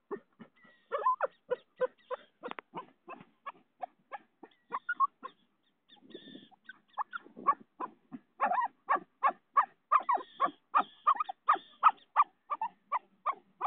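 An animal calling from inside a ground burrow: a fast run of short, sharp calls, several a second, with a brief break about six seconds in before they pick up again.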